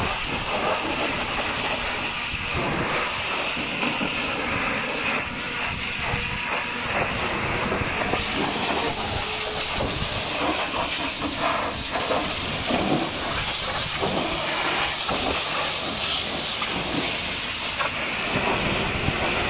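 High-pressure washer jet hissing steadily as it sprays mud off the steel dump body and chassis of a truck, the sound shifting a little as the jet moves over different surfaces.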